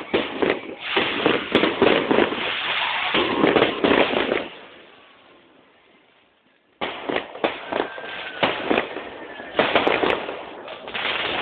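Fireworks display: a dense run of bangs and crackling from bursting shells that dies away about four seconds in, then starts again abruptly with more bangs and crackle.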